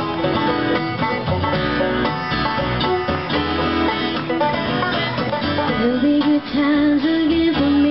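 Acoustic string band playing a bluegrass tune, with acoustic guitar and upright bass. A singing voice comes in near the end.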